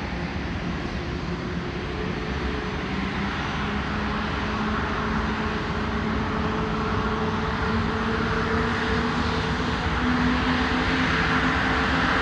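Airbus A330-900neo's Rolls-Royce Trent 7000 turbofans at taxi power, a steady jet rush with a low held hum, growing gradually louder as the airliner taxis.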